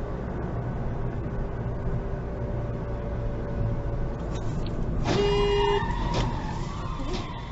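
Car driving in traffic with steady road and engine noise, then a car horn sounds once, a single honk of under a second, about five seconds in, as a car cuts across in front.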